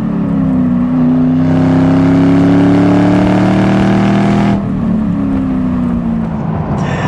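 Ford Mustang's V8 engine pulling hard, its pitch climbing steadily for about three seconds, then dropping sharply just past halfway and winding down.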